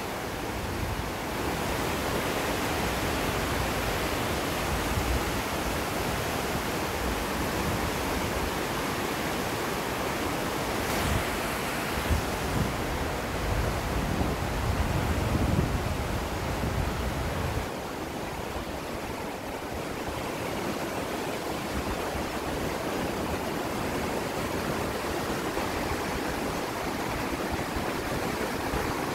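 Floodwater of a river swollen by heavy rain, rushing and churning fast: a steady wash of water noise, with some louder low rumbling about halfway through.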